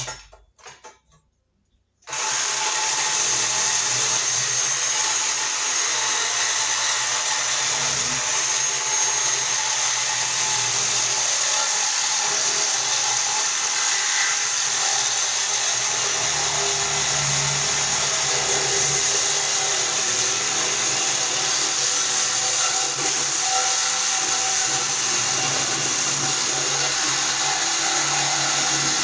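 Reciprocating saw cutting through the metal housing of a compressor. It starts about two seconds in and then runs on steadily.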